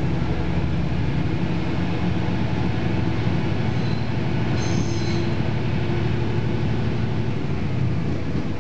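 KiHa 40 series diesel railcar running, heard from inside the car: a steady rumble of the diesel engine and wheels on the rails, with a brief high squeal about five seconds in.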